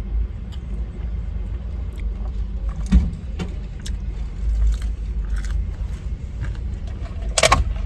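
Close-up eating sounds of a burger being chewed, with scattered small clicks and crinkles, over a steady low rumble.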